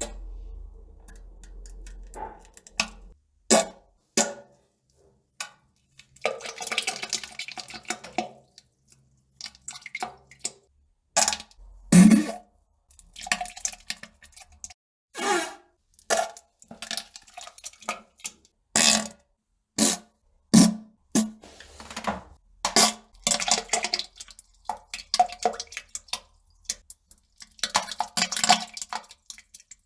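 Poop and fart sounds on the toilet: a string of short, irregular splats and plops, some with a low pitched note, broken by a few longer sputtering stretches.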